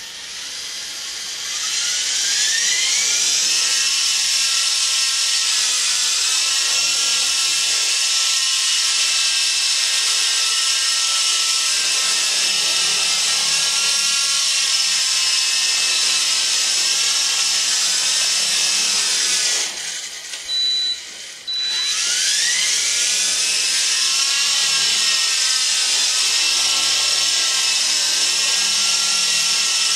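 Walkera 4#1 micro RC helicopter's electric motors spooling up with a rising whine about two seconds in, then a steady high whine of the rotors while it hovers. A little past the middle the whine drops away for about two seconds and spools up again.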